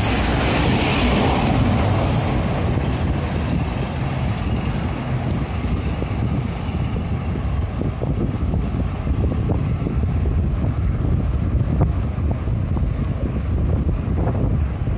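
Wind rushing over the microphone of a camera on a moving bicycle, with tyre and road noise under it and a scatter of small clicks and rattles.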